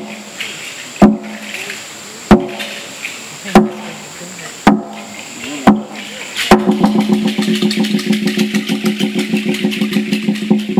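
Hollowed-log slit drum beaten with two wooden sticks: single hollow, pitched strikes about once a second, then from about six and a half seconds in a fast, continuous roll of strikes.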